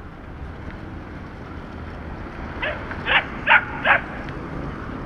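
A dog barking four times in quick succession, about halfway through, over a steady low rumble of wind and traffic.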